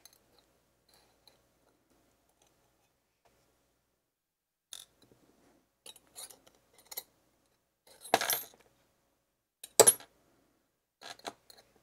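Small metal clicks and clinks of steel tweezers taking pins and springs out of an American 1100 padlock core. It is almost silent at first, then come scattered light clicks and two louder, ringing clinks about eight and ten seconds in.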